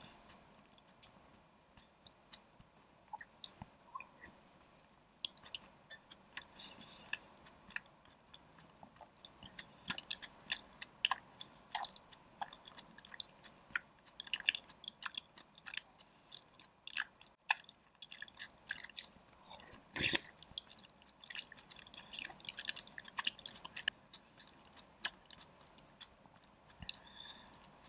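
Close-miked chewing of taro soup with chewy taro balls and boba: a run of short, wet mouth clicks, busier in the middle, with one louder click about twenty seconds in.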